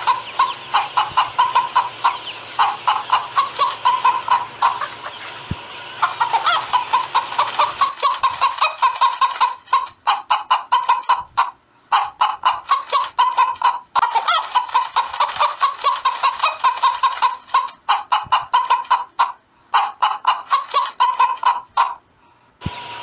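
Hens clucking in a fast run of short calls, about five a second, broken by a few brief sudden breaks.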